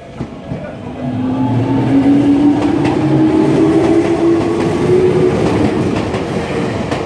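Tokyu electric commuter train passing over a level crossing. It builds up to loud running noise with a motor whine that rises in pitch and repeated clicks of wheels over rail joints, then begins to fade near the end.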